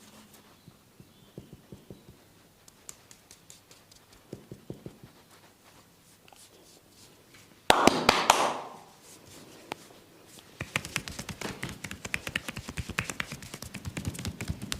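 Percussive massage strikes on a person's body: faint scattered taps at first, a loud short rushing slap a little past halfway, then a fast, dense run of rapid taps.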